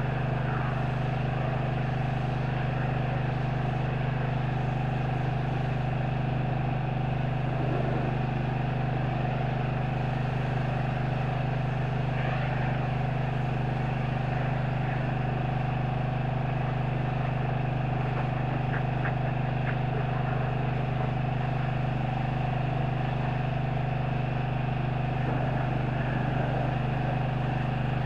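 Engine-driven pressure washer running with a steady, unbroken drone while its wand sprays a jet of water against a semi truck.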